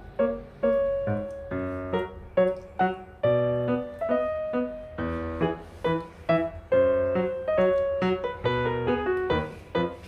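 Background piano music: a lively melody of struck notes over chords.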